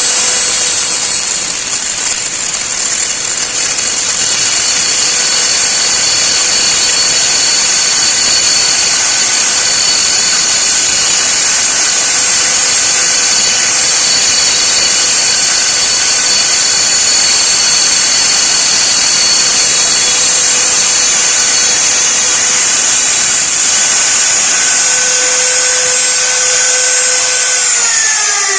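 A copy router's high-speed spindle motor running steadily with a loud, even whine. Right at the end its pitch starts to fall as the motor is switched off and spins down.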